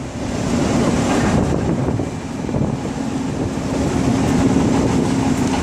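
Wind buffeting the microphone over a steady low mechanical hum, which grows stronger in the second half.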